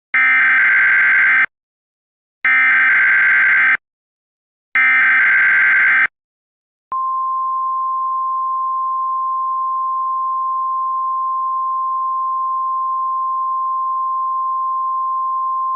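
Three short bursts of Emergency Alert System SAME header data screech, each about a second and a half long with brief gaps between them. About seven seconds in, a steady single-pitch alert tone follows: the NOAA Weather Radio 1050 Hz warning alarm tone. Together they mark the start of a new emergency alert, here a tornado warning.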